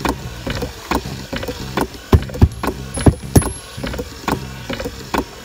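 Electric bilge pump running: a steady low hum with a regular knock a little over twice a second, and a few louder knocks between about two and three and a half seconds in.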